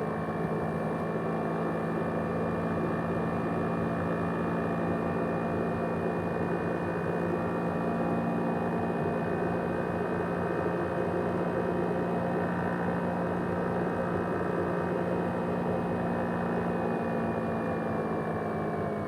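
ASUS X543UA laptop's cooling fan running in a steady, jet-engine-like whir with a high whine; near the end the whine starts to drop in pitch as the fan slows.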